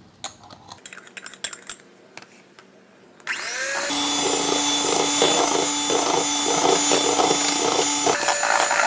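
Electric hand mixer switched on about three seconds in, its motor spinning up and then running steadily as the beaters whip egg-yolk and pumpkin batter in a stainless steel bowl; its pitch steps up to a higher speed near the end. Before it starts there are a few soft knocks as the pumpkin puree is tipped into the bowl.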